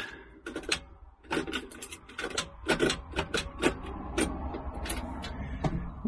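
A quick, irregular run of clicks and clacks from switches and control levers being worked in a tractor cab, while the operator tries to get a machine that won't start to fire.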